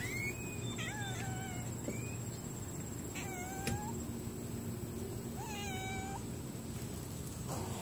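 A cat meowing: three short meows, about a second, three seconds and five and a half seconds in.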